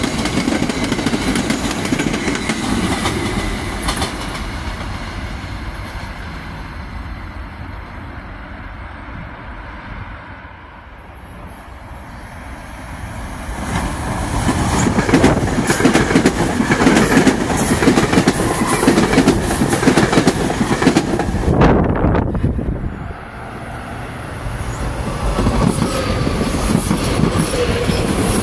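SEPTA electric multiple-unit commuter trains passing on the rails. A GE Silverliner IV fades away, then another train comes up and passes close, loud for several seconds in the middle. After a sudden drop, the noise of a close pass builds again near the end.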